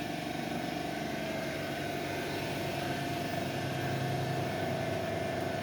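Automatic dual-station PCB soldering machine running, a steady mechanical hum with a thin, constant whine over it.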